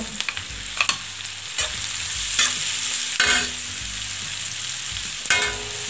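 Chopped onions sizzling in hot butter and oil on a flat metal tawa, with a steady frying hiss. A metal spatula scrapes and stirs them across the griddle several times.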